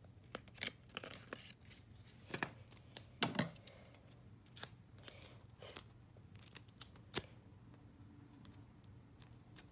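Scissors snipping paper and tape, with rustling and tearing of paper between cuts: irregular sharp snips at no steady rhythm.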